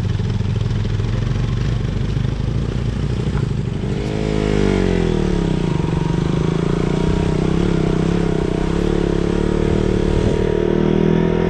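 Motorcycle engine running on the move. About four seconds in it revs up and eases back, then settles into a louder, steady drone.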